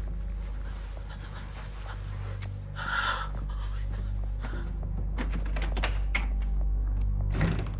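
A sharp, breathy exhale about three seconds in, then a run of quick footsteps and clicks as a door is opened, with a knock-like thump near the end, all over a low steady drone.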